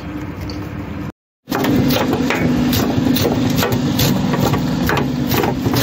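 A knife chopping mint and coriander leaves on a wooden board, in sharp chops about three times a second, over a steady low machine hum. The chopping starts after a short break in the sound about a second in.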